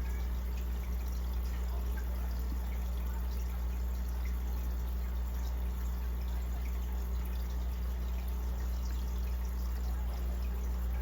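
Aquarium water trickling and dripping steadily over a constant low hum from the tank's equipment.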